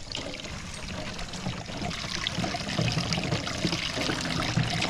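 Water pouring in a steady stream from the spout of a lever-operated borehole hand pump into a plastic jerrycan as it fills.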